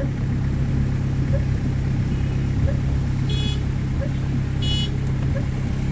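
Steady low rumble of a motor vehicle running, with two short high-pitched beeps about three and a half and nearly five seconds in.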